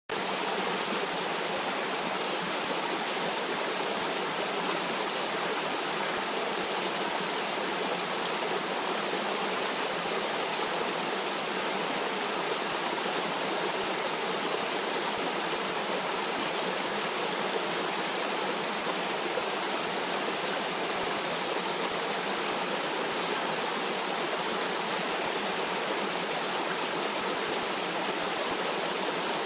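Stream of water flowing: a steady, even rush with little deep bass and no changes.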